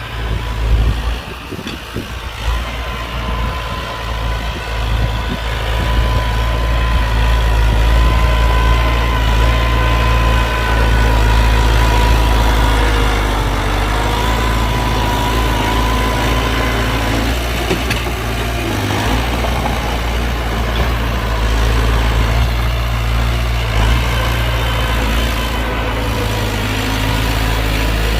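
Heavy earthmoving machine's diesel engine running steadily, louder from about six seconds in, with a thin steady whine alongside it through the middle.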